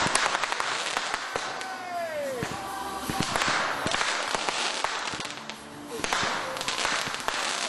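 A 'Diablo' consumer fireworks cake firing: a dense run of crackling pops and sharp reports, with a falling tone about two seconds in.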